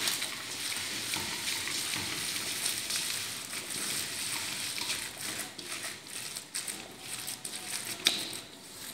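A gloved hand squeezing and mixing a wet batter of grated zucchini, carrot, herbs, white cheese, egg and flour in a stainless steel bowl: a steady wet squishing and crackling, with a sharp click near the end.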